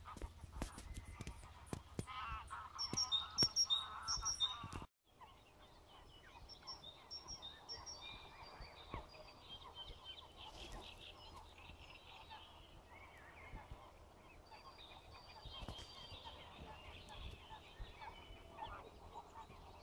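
Greylag geese honking, loudest in the first few seconds, with small birds chirping and singing around them. The sound drops out for a moment about five seconds in, then goes on fainter, with scattered calls.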